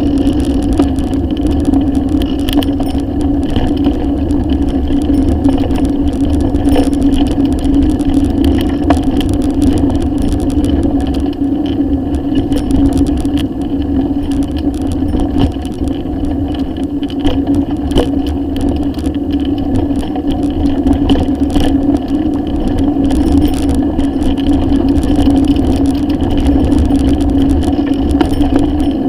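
Bicycle riding over rough, patched asphalt, heard through a handlebar-mounted action camera: a steady rumble and hum from the tyres and frame, with scattered rattles and clicks from the bike and mount.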